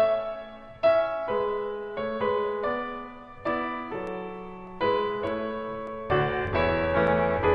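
Piano music: chords struck one after another, roughly one a second, each left to ring and fade, with deeper bass notes joining near the end.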